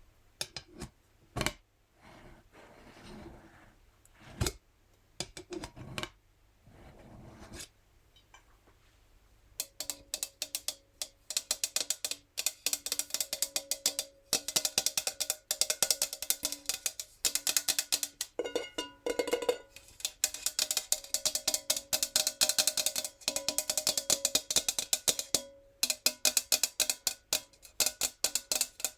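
Fingernails tapping on a metal jar, each tap leaving a short metallic ring. At first there are only a few scattered taps with some handling noise; about ten seconds in, fast continuous tapping starts and runs on with a couple of brief pauses.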